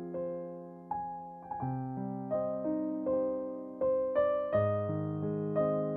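Background piano music: slow chords and single notes, each struck and left to ring and fade before the next.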